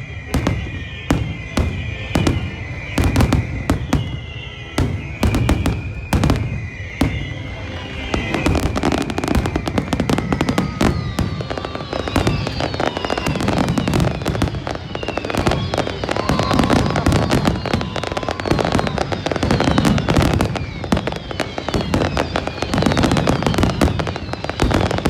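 Fireworks display: separate booming shell bursts for the first several seconds, then from about eight seconds in a dense, continuous barrage of crackling bursts with many falling whistles.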